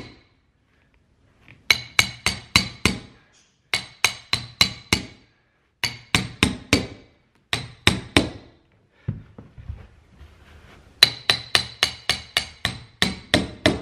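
Hammer striking a metal stair tucking tool to drive carpet into the crease at the back of a stair tread. The strikes come in five quick runs of about three blows a second, each hit with a short metallic ring, and there are short pauses between the runs.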